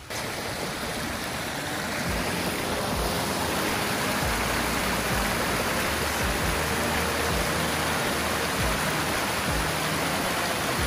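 Mountain creek rushing and splashing over rocks and fallen logs between snowy banks: a loud, steady rush of water.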